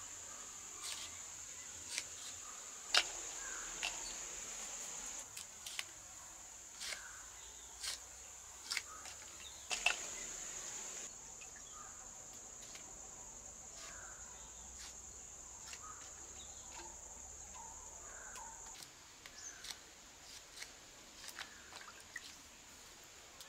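Knife slicing fresh green chillies by hand: crisp cuts at irregular intervals, roughly one a second, louder in the first half. A steady high-pitched drone runs underneath.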